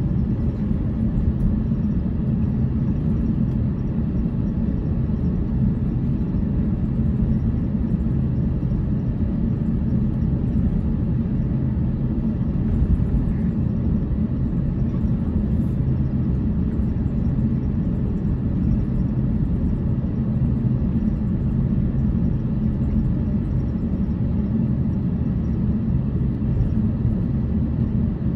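Steady low rumble inside the cabin of an Airbus A350 taxiing, its Rolls-Royce Trent XWB engines running at low taxi power.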